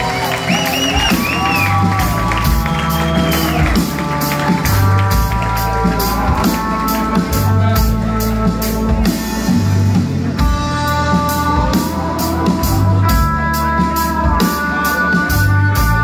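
Rock band playing live: a steady drum beat with held guitar notes and a moving bass line. Crowd whoops and whistles trail off over the first few seconds.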